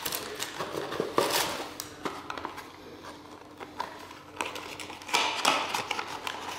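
Small objects being handled, a splitter box and its accessories: scattered light clicks and knocks, with a rustling swish about a second in and another about five seconds in.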